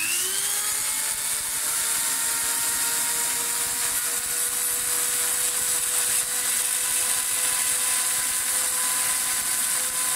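Off-brand Dremel-style rotary tool spinning up within the first half second, then running at its highest speed with a steady high whine and hiss. The ABS rod in its chuck is pressed into the joint of an acrylic cassette door so that friction melts the plastic and spin-welds the joint.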